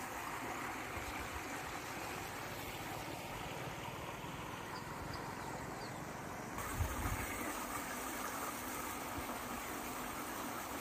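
Steady outdoor background hiss with no distinct event, changing abruptly about two-thirds of the way through, with a few brief low rumbles just after.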